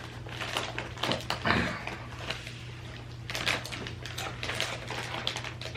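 Irregular crinkling and crunching as a bag of spicy mustard potato crisps is handled and the crisps are bitten, over a steady low hum.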